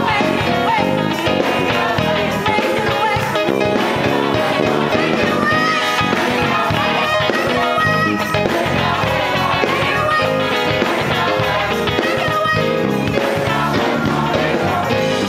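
Gospel choir singing with instrumental accompaniment, loud and continuous.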